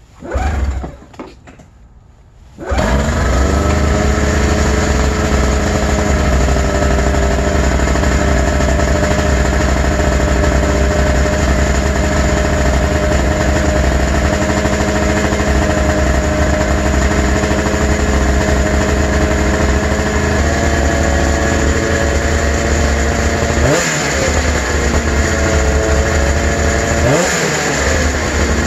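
2002 Arctic Cat ZR 600 EFI snowmobile's two-stroke twin starting: a short burst, then it catches about three seconds in and runs steadily at a high idle. The high idle comes from the throttle cable pulling the throttle open. The throttle is blipped twice near the end, the revs rising and falling back each time.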